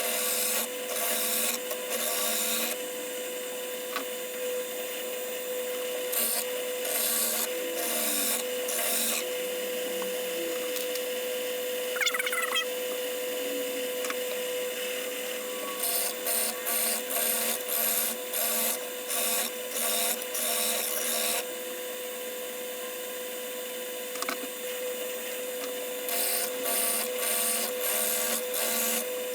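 Drill press motor running with a steady hum while a wooden mandolin headstock is fed past its spinning thicknessing head. Groups of short rasping passes come and go as wood is taken off to taper the headstock and square its faces.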